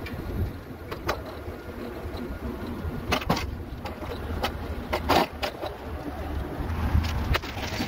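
Mobility scooter on the move: a steady low hum of the ride, broken by several short sharp knocks and rattles, the loudest about five seconds in.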